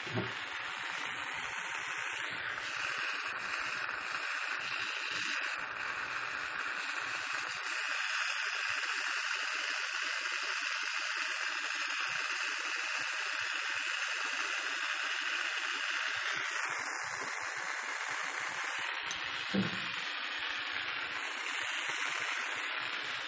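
Soldering torch flame hissing steadily while silver banners are soldered onto a belt buckle.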